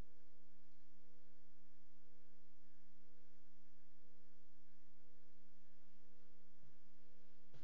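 Steady electrical mains hum, a low drone with several even overtones that does not change. A single short click comes at the very end.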